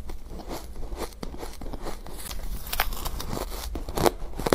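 Mouth biting and chewing powdery, frost-like ice: a string of irregular crisp crunches and crackles, the loudest near the end.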